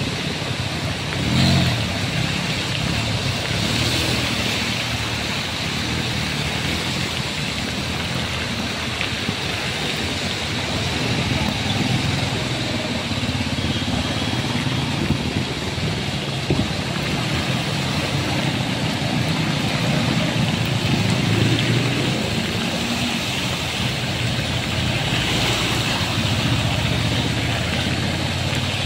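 Motorcycles and cars driving through floodwater in heavy rain: engines running and tyres splashing through standing water over a steady rush of rain.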